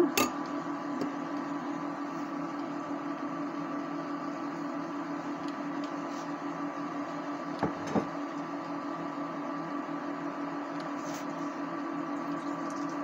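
Steady electrical hum of a running kitchen appliance, even in pitch and level, with two light knocks about eight seconds in.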